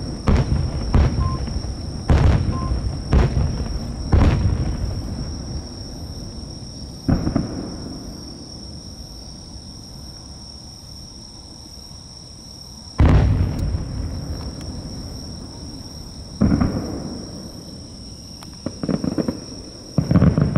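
Large aerial firework shells, shakudama (10-gō) shells, bursting. Five booms follow quickly in the first four seconds, then single heavy booms come several seconds apart, the loudest about 13 seconds in. Each boom leaves a long low rolling echo, and there is a quick cluster of smaller pops near the end.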